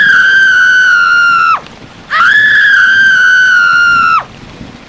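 Two long, high-pitched squeals of about two seconds each, separated by a short gap. Each holds nearly one pitch, sags slightly, then drops off sharply at the end.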